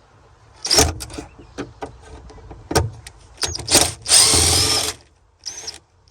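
Handheld power drill run in about five short bursts, spinning up and down, the longest lasting nearly a second just past the middle. It is taking off the fasteners that hold a Ford Mustang II trunk lock.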